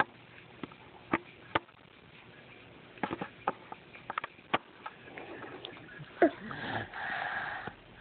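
A toddler breathing and huffing close to the microphone while his hands knock and click against the camera, with a short falling vocal sound about six seconds in.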